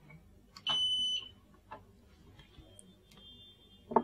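Electronic alarm buzzer on a PIR automatic door kit gives one steady high beep of about half a second, about a second in, signalling that a person has been detected and the gate is opening. A sharp click comes near the end.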